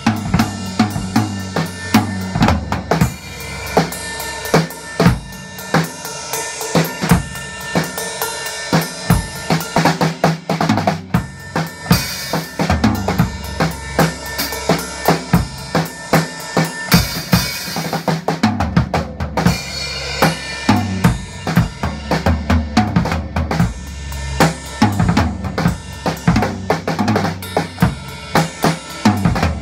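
Drum kit being played in a steady, busy beat of kick and snare strokes, with bright cymbal crashes about 12 and 17 seconds in.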